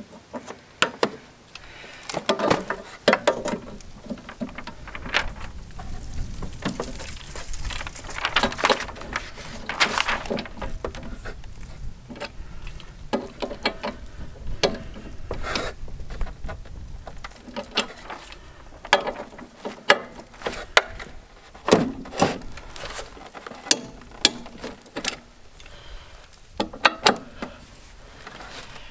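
A ratchet wrench clicking in short runs, with metal-on-metal clanks and knocks, as the bolt holding the lawn mower blades is tightened.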